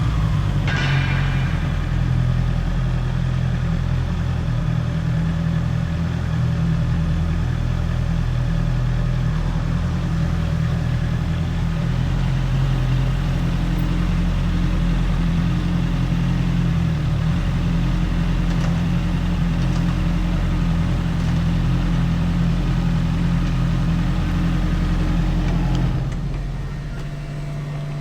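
Honda CBR650R's inline-four engine, stock exhaust, running at a steady engine speed; the level drops and the note changes near the end.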